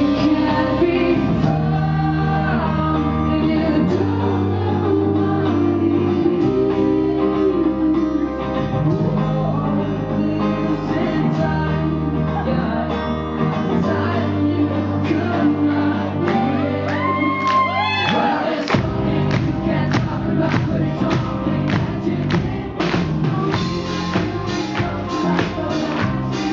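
Live pop-rock band playing with a male lead vocal over guitar and long held bass notes; the drum kit comes in with a steady beat about two-thirds of the way through.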